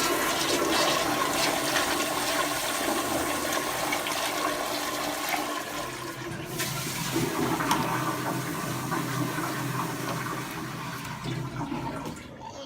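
Two toilets flushed at the same time: a loud, steady rush of water that dies away near the end.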